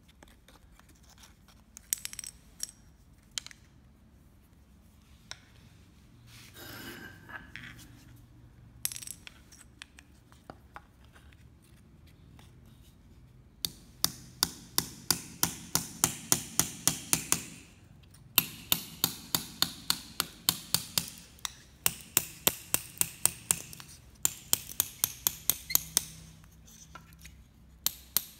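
Hammer tapping a short piece of hollow tube to split it lengthwise, a few scattered knocks and clicks at first, then from about halfway in runs of sharp, even taps at about three to four a second with brief pauses between.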